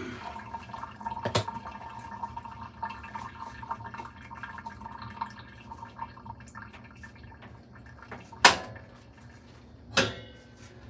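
Frying pan being handled on a gas stove's metal burner grate: light clicks and knocks, then two loud clanks near the end, the second ringing briefly.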